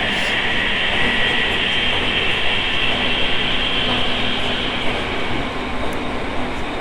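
E217 series electric commuter train running, heard from inside the car: steady rumble and rail noise with a high whine from the traction equipment.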